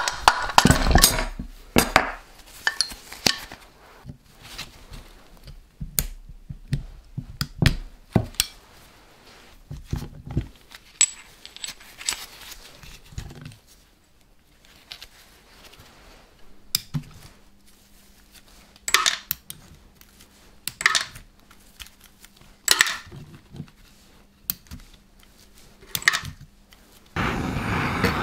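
Metal tools and engine parts clinking and knocking in scattered, irregular strikes as the engine is worked on by hand. About a second before the end, a loud steady rushing noise starts suddenly.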